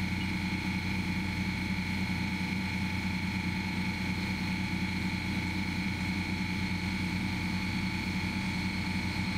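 Steady machinery drone with a constant high whine above it and a fast flutter in the low hum, unchanging throughout.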